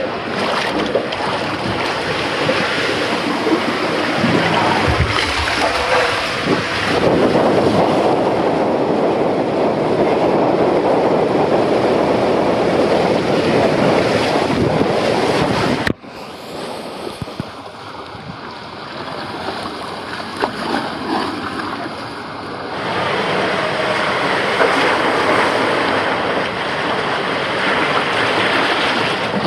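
Water rushing through an enclosed Polin Aquatube body slide as a rider slides fast down it, a loud continuous wash of noise. About halfway it cuts off abruptly to a quieter wash, which swells again near the end.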